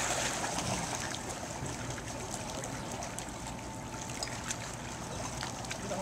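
Bay water lapping and trickling around shoreline rocks, with scattered small splashes.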